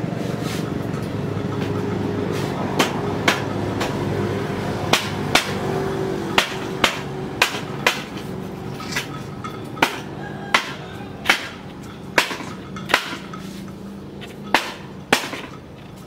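Sharp knocks, like hammer strikes, in irregular groups of two to four about half a second apart, over a low hum that slowly fades.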